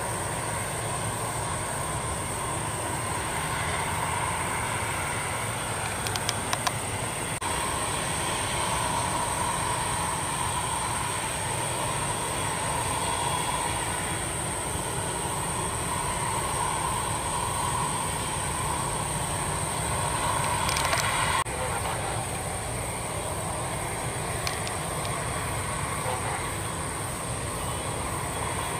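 Jet airliner engines running at taxi idle, a steady whine over a low rumble: first a McDonnell Douglas MD-80's rear-mounted Pratt & Whitney JT8D turbofans, then after a cut about seven seconds in a Boeing 737-800's CFM56 turbofans, and after another cut about 21 seconds in the MD-80 again as it lines up for take-off.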